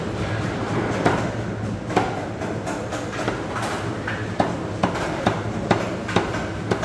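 A blade chopping through a stingray: about eight sharp knocks at an uneven pace, roughly one or two a second, over steady background noise with a low hum.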